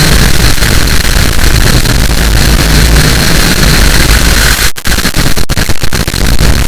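Loud harsh noise: dense, distorted static filling the whole range, heavy in the bass, broken by a few brief cut-outs about five seconds in.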